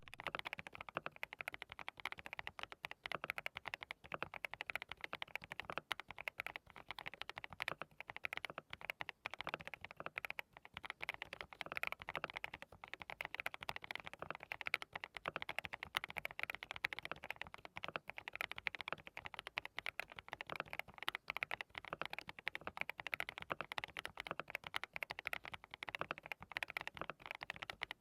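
Continuous, rapid typing on a hand-lubed DT35 87-key custom mechanical keyboard fitted with Haimu Midnight linear switches: a dense, unbroken run of keystrokes.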